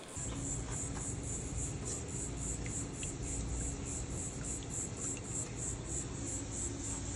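Insects chirping steadily in a fast pulsing rhythm, about four pulses a second, over a low steady hum.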